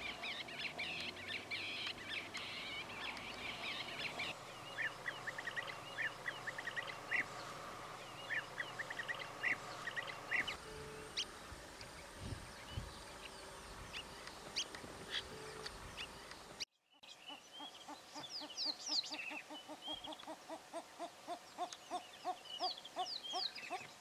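Several birds chirping and calling, with quick high chirps and trills. There is a short dropout about 17 seconds in, after which a regular run of repeated calls starts, several a second, with high chirps over them.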